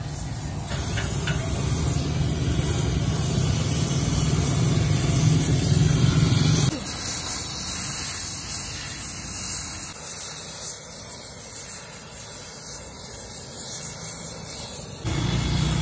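Gas welding torch flame burning steadily against the base of a rear axle housing: a continuous hiss over a low rumble. The rumble drops off sharply about seven seconds in and comes back near the end.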